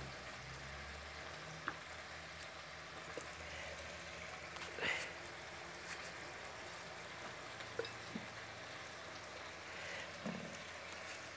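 Soft, steady sizzle of vegetables sautéing in oil in a clay pot, with a few light clicks and knocks as tomatoes are cut with a knife and dropped into a glass blender jar, the loudest knock about five seconds in.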